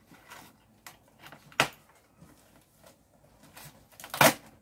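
Cardboard shipping box being opened by hand: scattered scrapes and rustles of cardboard and packing tape, with a sharp one about a second and a half in and a louder, longer one near the end as a flap is pulled open.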